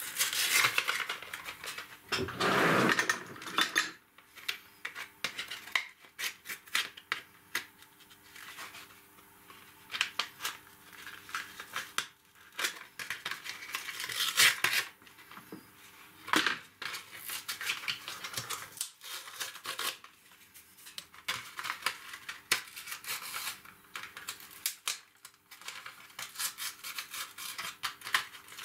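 Hands handling small plastic model parts and a superglue bottle: scattered clicks, taps and rustles, busiest in the first few seconds, then on and off, over a faint steady hum.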